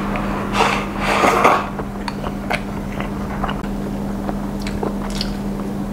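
A person eating with chopsticks. About a second in there is a noisy scrape as rice is pushed in from a bowl held to the mouth, then chewing and small clicks of chopsticks against the dishes, over a steady low hum.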